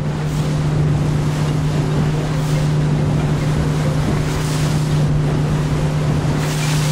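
Motorboat engine running steadily as the boat moves across the lake, a constant low drone, with water rushing along the hull and wind on the microphone.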